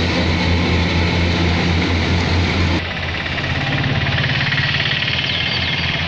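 Kubota crawler combine harvester's diesel engine and harvesting machinery running steadily with a strong low hum. About three seconds in, the sound cuts abruptly to the same machine heard farther off and slightly quieter.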